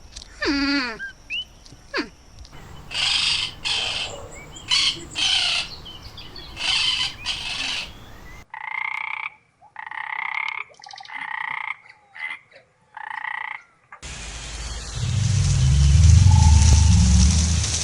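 A series of short animal calls cut from several different clips: first a run of harsh, rasping calls, then after a sudden cut about six short, pitched, nasal calls, and near the end a loud low rumble with hiss from another clip.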